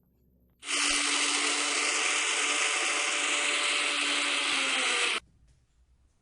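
Electric mixer grinder running for about four and a half seconds, grinding roasted peanuts with jaggery; it starts and cuts off abruptly.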